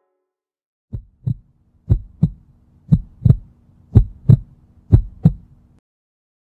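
Heartbeat sound effect: five double thumps, lub-dub, about one a second over a faint steady hum, starting about a second in and stopping shortly before the end.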